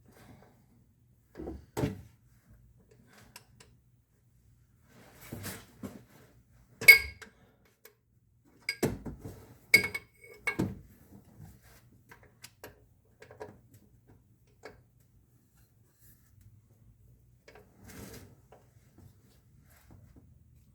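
Handling noises: scattered knocks and sharp metallic clinks, the loudest two ringing briefly about seven and ten seconds in, with fainter knocks in between.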